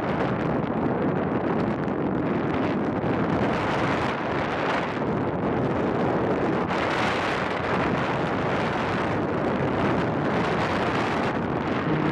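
Steady rush of airflow on the microphone of a paraglider pilot's harness-mounted camera in gliding flight.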